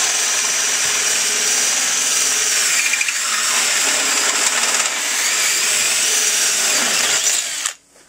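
A 1½-inch (38 mm) hole saw in a power drill cutting into the stainless steel baffle inside a Yamaha Virago 1100 muffler: a steady, loud, high-pitched screech of metal, which stops suddenly near the end.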